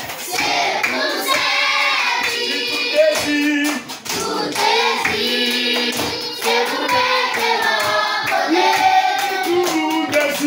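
A classroom of children singing together in unison, with hand claps through the song.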